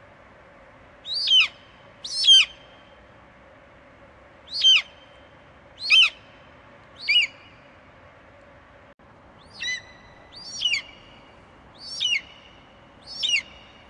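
Bald eagle calling: nine short, high-pitched whistled chirps, each falling sharply in pitch, spaced irregularly a second or two apart, over a faint steady background hum.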